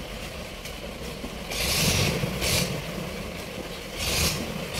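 Boat engine on a loaded barge-ferry running steadily while its propeller churns the water, with two louder rushing surges, one about a second and a half in and a shorter one about four seconds in.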